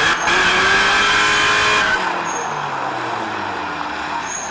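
Car doing a burnout, its engine held at high revs with the tyres spinning and squealing for about two seconds, then the revs falling away as it lets off.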